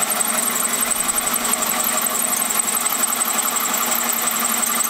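Cordless drill running steadily, driving a hole saw through a pickup truck's sheet-metal fender to cut the hole for a snorkel.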